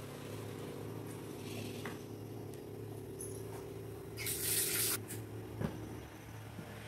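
Quiet kitchen sounds: a wooden spatula moving a sautéed masala of tomato, onion and coconut around a clay pot over a steady low hum. There is a brief hissing scrape about four seconds in and a light click a little later.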